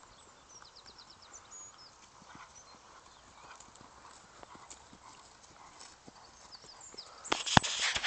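A ridden horse's hooves striking grass as it moves around the paddock, soft irregular thuds. Near the end the horse passes close by and the hoofbeats turn much louder, with a loud rush of noise.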